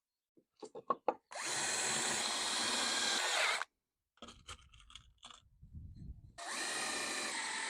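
Power drill run twice, about two seconds each, drilling and driving screws into pallet-wood shelf boards, with light knocks and clicks from handling the wood and drill in between.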